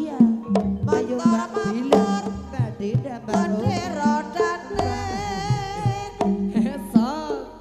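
Javanese gamelan music accompanying an ebeg (kuda lumping) dance: repeated kendang hand-drum strokes under a wavering, sliding melody.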